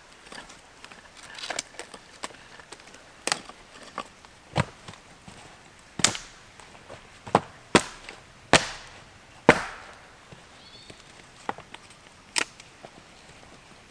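Wood cracking and knocking in sharp, separate strikes, around ten of them at irregular intervals and loudest in the middle, as firewood is broken or chopped for a small campfire.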